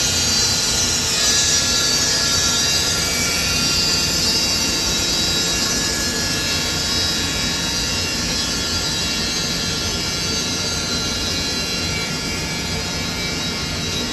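Sawmill saw cutting a log into thin 6 mm fence boards: a steady high-pitched whine over machine running noise, easing slightly in loudness toward the end.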